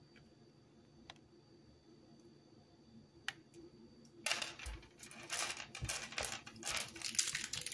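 Small Canel's chewing gum tablets clicking against each other and sliding over a wooden table as a hand gathers them into a pile: a couple of single faint clicks, then a dense, irregular clatter from about four seconds in.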